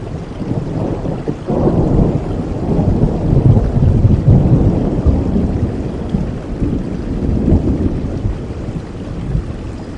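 Steady rain with a long, deep roll of thunder that builds about a second and a half in, is loudest in the middle, and fades away near the end.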